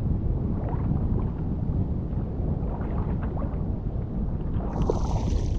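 Strong wind buffeting the microphone on a small open boat at sea: a steady low rumble with faint ticks and water splashes against the hull. A faint high hiss joins near the end.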